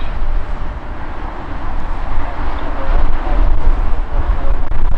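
Airbus A350's Rolls-Royce Trent XWB jet engines running as the airliner rolls down the runway: a steady rumble that grows louder about halfway through, with wind on the microphone.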